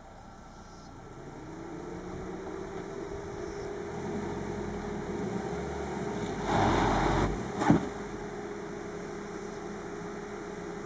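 A Fiat compact MPV's engine revving up and held at high revs while the car strains, wheels in a gravel-track ditch, to climb out. About two-thirds through a short, louder rush of noise comes, ending in a single sharp knock.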